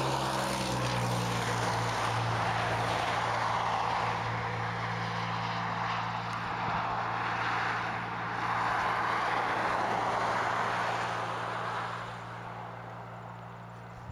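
Highway traffic going by: tyre and engine noise from passing vehicles, swelling twice and fading about twelve seconds in, over a steady low hum.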